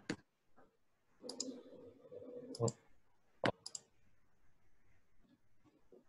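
Computer mouse button clicks, mostly in quick pairs, five times over the first four seconds. A faint low murmur sounds for about a second and a half in the middle.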